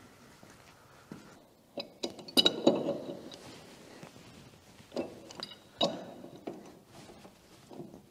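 A run of sharp metallic clinks and knocks from metal tools and parts being handled, about half a dozen, some with a brief ring. The loudest cluster comes about two and a half seconds in.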